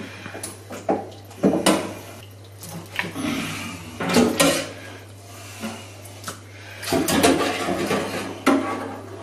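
Boiled pig-head pieces and bones being moved and pulled apart in a stainless-steel tray, with irregular clatters and knocks of bone on metal, over a steady low hum.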